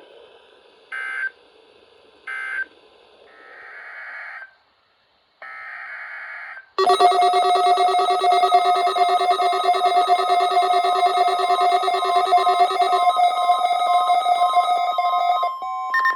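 NOAA Weather Radio test alert signals: three short electronic data bursts at the start, typical of the EAS/SAME end-of-message code, then about seven seconds in a loud, steady multi-tone alarm that shifts to a pulsing higher beep near the end.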